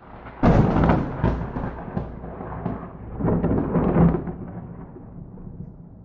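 Thunder without rain: a sharp crack about half a second in, crackling on for a moment, then a second loud peal a few seconds later, dying away into a long low rumble.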